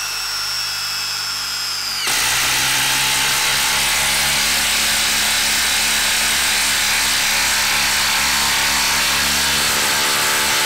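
Milwaukee 1/4-inch impact driver driving a long lag screw into a wooden log. For about the first two seconds the motor spins with a steady high whine. Then the impact mechanism starts hammering without a break as the screw bites into the wood, and keeps on to the end.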